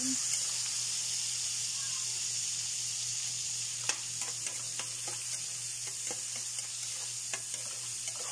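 Garlic and tomato sautéing in oil in a wok, with a steady sizzle. A metal ladle stirs and scrapes the pan, making sharp clicks scattered through the second half.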